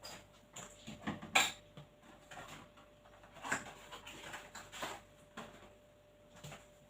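Small objects being handled and set down on a work surface: a few scattered light knocks and clicks, the sharpest about one and a half seconds in.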